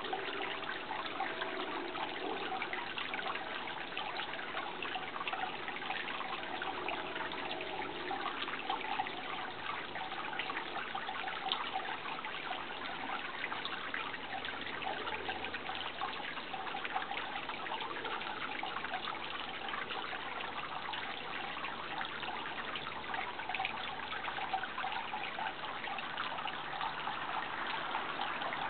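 Water running and trickling steadily, like a small stream or brook, with a constant splashing patter.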